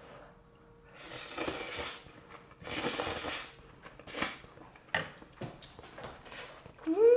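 Slurping noodles: two long slurps, then a few smacking chewing clicks. Near the end comes a short hummed 'mm' that rises and falls in pitch, the loudest sound.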